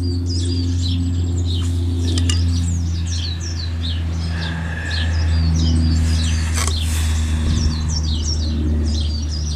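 Small garden birds chirping and twittering over and over, over a steady low hum. There are a couple of brief scraping or knocking sounds, one about two seconds in and one about seven seconds in.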